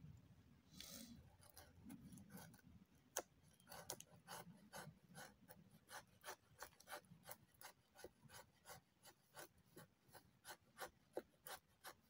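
A knife blade carving shavings off a stick of resinous fatwood: a faint run of short, sharp scraping strokes, about three a second, starting a few seconds in.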